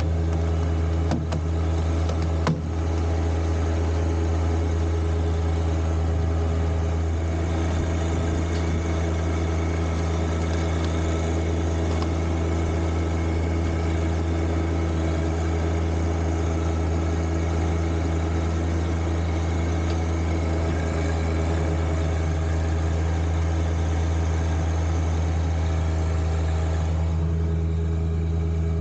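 John Deere 1025R compact tractor's three-cylinder diesel engine running steadily, with two brief knocks in the first few seconds.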